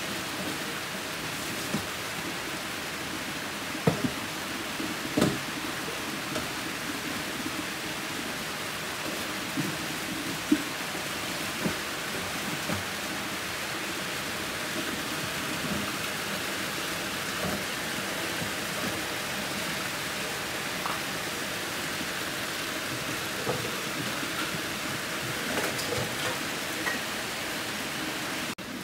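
Crabs in coconut-milk chilli gravy simmering in a pan: a steady hiss with scattered pops of bubbles bursting.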